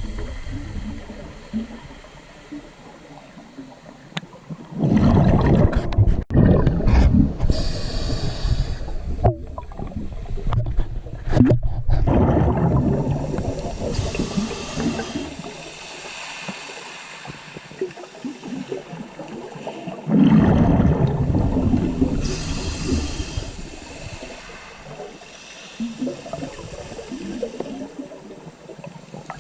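Sea water surging and gurgling in two long loud bursts, with a steady hiss in between.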